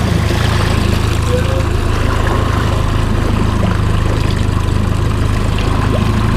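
Yamaha 20 hp outboard motor running at a steady trolling speed, an even low hum over a hiss of water and wind.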